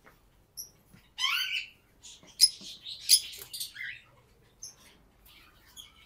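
Lovebirds calling: a quick run of high, sliding chirps and a few sharp squawks between about one and four seconds in.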